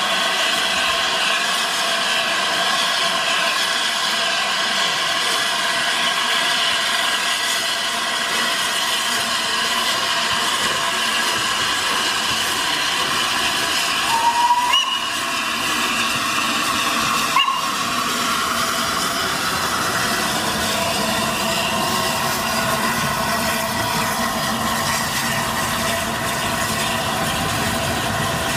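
Steam locomotive Flying Scotsman hissing steam loudly and steadily while standing, with two short whistle blasts about halfway through. A low rumble builds near the end as the locomotive gets under way and rolls past.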